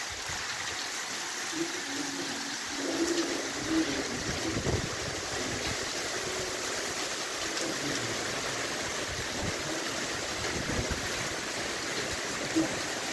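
Heavy rain falling, a steady dense hiss, with brief gusts of wind buffeting the microphone in the first few seconds.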